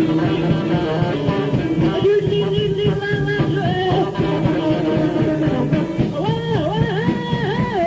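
Post-punk band playing live, with a steady low bass note under the instruments. Near the end a melodic line rises and falls about four times.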